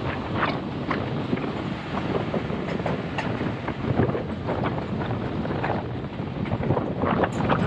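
Passenger train running along the track, heard from aboard, with wind rushing over the microphone and irregular rattles and knocks from the carriage.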